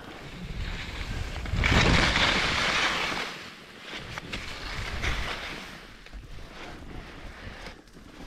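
Skis scraping and sliding over firm, chopped snow, with wind on the microphone; the loudest scrape comes about two seconds in and a smaller one around five seconds.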